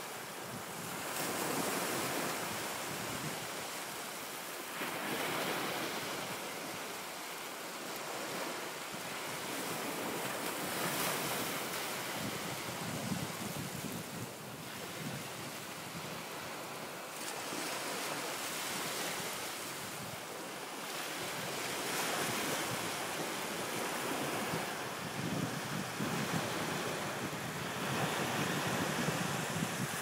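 Small ocean waves breaking and washing up a sandy shore: a steady rush of surf that swells every few seconds as each wave comes in.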